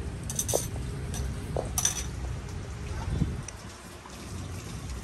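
A few light clinks and taps of bowls and utensils over a low, steady background rumble.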